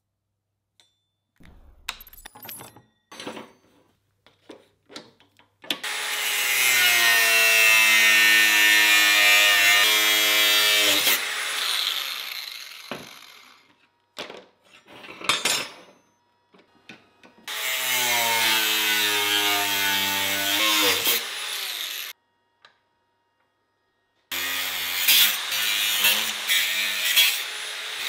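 Angle grinder cutting through a steel chain sprocket held in a vise, in three bouts: each a loud, steady, ringing whine that dips in pitch as the disc bites into the steel, the first spinning down slowly afterwards. Clanks and knocks of the steel sprockets being handled come before and between the cuts.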